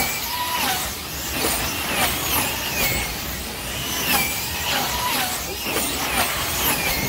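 Wing-class slot cars racing: the small electric motors whine, swelling and falling in pitch again and again as cars speed down the straights and brake into the turns, over a steady hiss of the cars running in the track.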